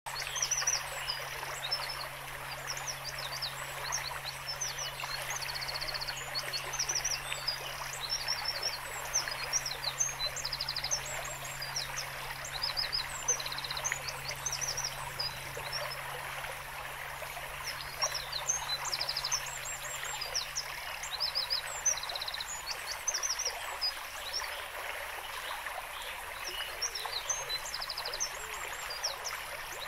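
Small birds chirping and trilling again and again over a steady rush of flowing water.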